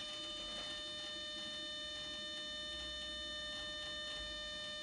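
Room tone: a steady faint electrical whine made of several fixed high tones over a low hiss, with a little low rumble.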